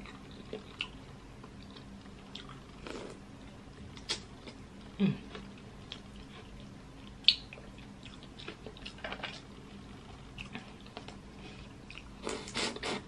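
Close-up eating sounds of crawfish in butter sauce: scattered soft wet clicks, squishes and drips as crawfish are dipped and handled, with a louder cluster of wet smacking near the end as a crawfish is bitten and sucked.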